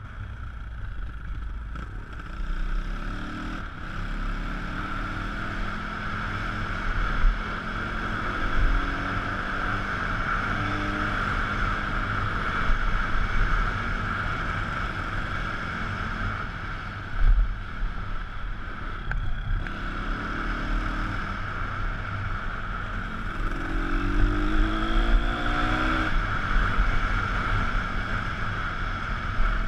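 Pit bike's small single-cylinder engine running under way, revving up several times as it pulls through the gears, with wind rushing over the helmet-mounted microphone.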